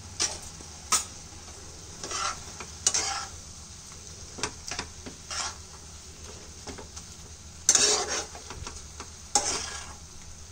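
Steel spatula stirring and scraping a prawn, onion and chilli-powder mixture around a nonstick frying pan in irregular strokes, with the mixture sizzling as it fries and gives off its water.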